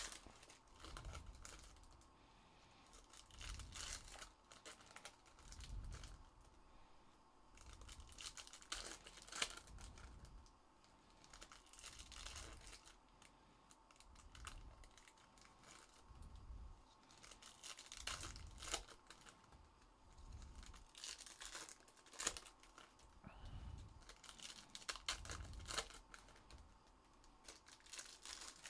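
Foil trading-card pack wrappers being torn open and crinkled, with cards handled and tapped between the tears, quiet and in short repeated bursts.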